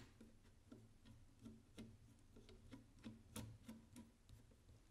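Screwdriver tightening an M5 screw that fastens a remote pressure switch to a rifle handguard: a faint series of small metallic ticks, about three a second.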